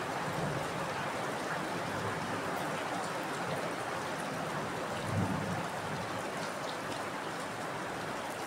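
Heavy rain falling steadily: a dense, even hiss with scattered drop ticks, and one brief low thump about five seconds in.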